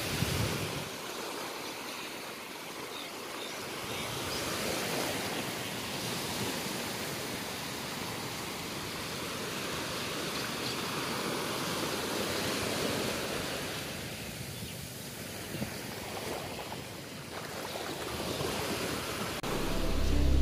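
Small waves washing up onto a sandy beach, the surf rising and falling every few seconds. Music comes in right at the end.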